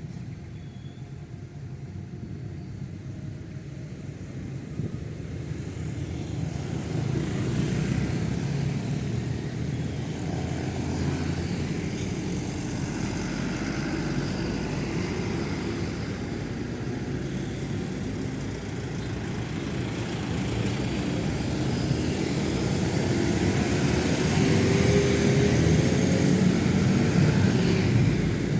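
Road traffic passing close by, a steady rumble of motorcycle and car engines and tyres on asphalt. It swells as vehicles go past, and one engine rises in pitch near the end as it accelerates.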